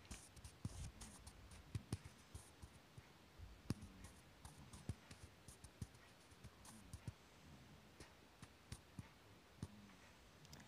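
Faint, irregular small clicks and taps of parts and tools being handled on a workbench, over quiet room tone.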